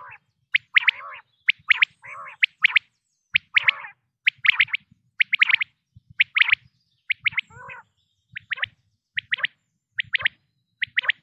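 Male common quail calling: short, sharp phrases of two or three quick notes, repeated a little more than once a second. Softer, lower notes sound between some of the phrases in the first part.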